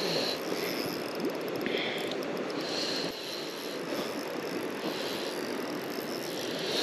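Steady rush of a fast-flowing river current.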